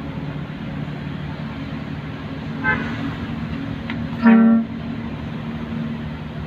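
Steady engine and road drone of a vehicle on the move, with one short horn toot about four seconds in.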